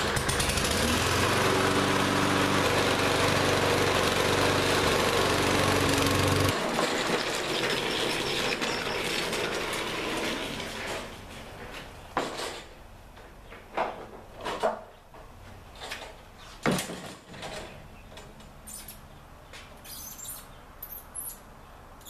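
Lawn-Boy push mower's small engine pull-started and running steadily for about six seconds, then cutting off, freshly running again after its gummed carburetor was cleaned. Later come several sharp knocks and clunks as the mower is lifted into a pickup bed.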